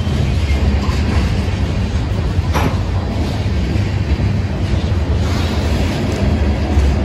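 Freight cars (covered hoppers, then open gondolas) rolling past close by: a steady, loud rumble of wheels on rail. About two and a half seconds in there is one brief, sharper noise.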